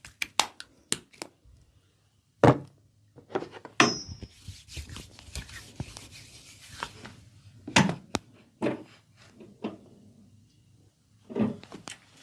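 Hand massage on the body: a quick run of sharp slaps, a heavy thud about two and a half seconds in, then scattered thuds with a few seconds of rustling rubbing noise between them, and one more thud near the end.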